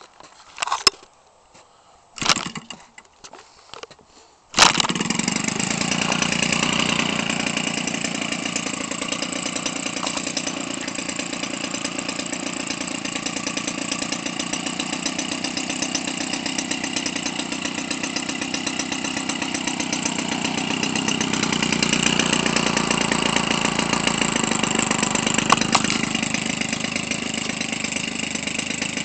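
Converted Weedeater Featherlite 25cc two-stroke engine spinning a large model-aircraft propeller. It is hand-started: two short sputters, then it catches about four and a half seconds in and runs steadily, swelling slightly later on. It exhausts through a muffler with holes drilled in its baffle, which makes it a little louder.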